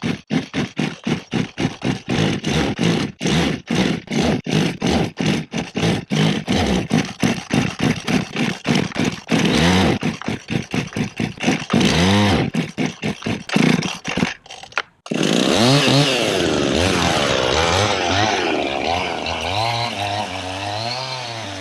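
Two-stroke Husqvarna 55 chainsaw engine running in quick short pulses, several a second. After a sudden break about fifteen seconds in, it runs continuously with its pitch rising and falling as the throttle is worked.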